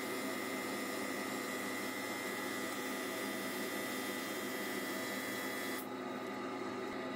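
Wood lathe running with sandpaper held against a spinning wooden lid: a steady hiss over a motor hum. Near the end the higher hiss cuts off suddenly, leaving the hum.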